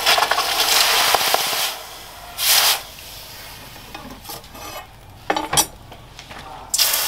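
Red-hot leaf-spring steel blade quenched in water: a loud hissing sizzle for the first second and a half or so. Shorter bursts of hissing follow as the blade is moved in the water, and the hiss grows loud again near the end.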